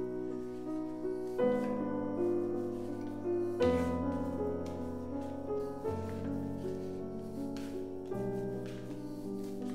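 Background piano music, with a new chord about every two seconds.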